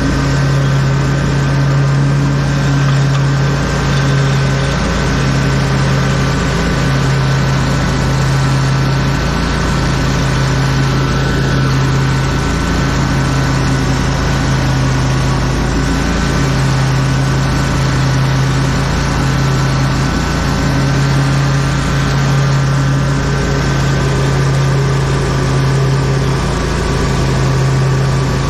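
Lawn mower engine running steadily at constant speed, with a steady high whine above the engine hum.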